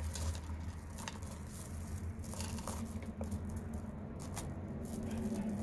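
Strands of turquoise chip-bead necklaces clicking and rattling against each other as they are handled and pulled from a jewelry box drawer, in light irregular clicks over a steady low hum.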